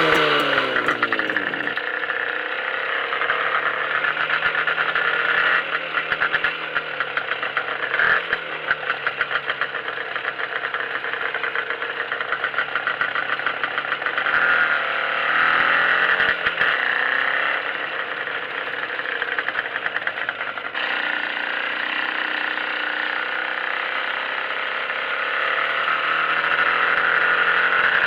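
IZh Jupiter-5 two-stroke twin-cylinder motorcycle engine running through a muffler with its baffles removed, idling with a few brief revs whose pitch rises and falls.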